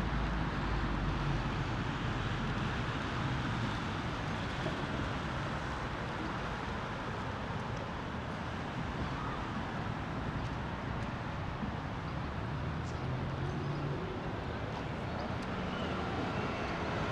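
City-centre street ambience: steady road traffic noise, with a vehicle engine's low hum rising now and then.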